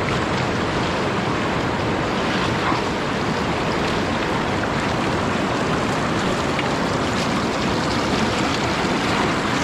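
Flowing river water: a steady rush of current, even and unbroken.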